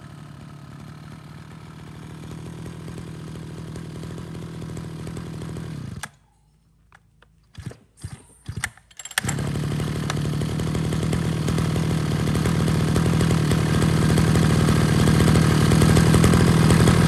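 Mitsubishi TL33 33cc two-stroke brush cutter engine running steadily. It cuts out about six seconds in, a few short knocks follow, and it runs again from about nine seconds in, growing louder toward the end.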